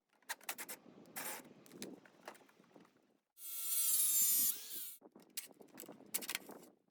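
Tools clicking and clanking against metal, with a power tool running for about a second and a half in the middle; its whine sags slightly, then rises just before it stops.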